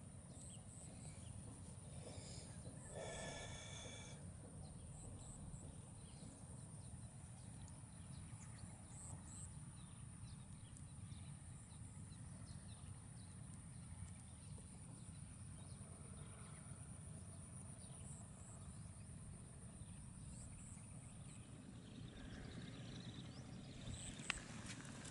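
Faint outdoor wetland ambience with a low steady rumble of wind, a short bird call about three seconds in, and faint high chirps here and there. A single sharp click comes near the end.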